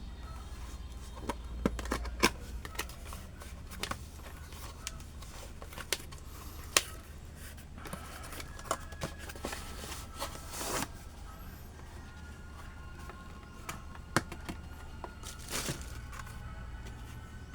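Scattered clicks, taps and rustles of packaging being handled while a power supply is unboxed, over a low steady hum, with faint held tones in places.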